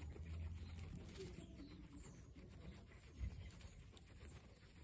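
Guinea pigs chewing carrot pieces and grass: faint, quick crunching and nibbling over a low rumble, with one soft thump a little past three seconds. A faint cooing call sounds about a second in.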